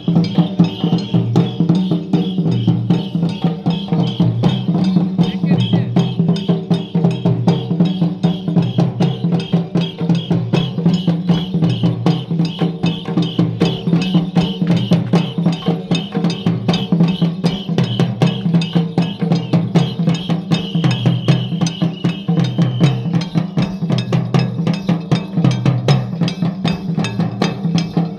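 Santhal double-headed barrel drums, played by hand in a fast, steady dance rhythm.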